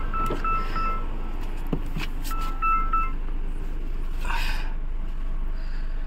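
A car's electronic chime beeping in two short runs of steady single-pitched beeps, with a couple of soft knocks about two seconds in.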